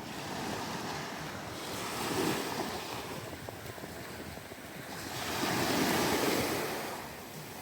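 Ocean surf washing onto the shore, swelling twice as waves break, with wind buffeting the microphone.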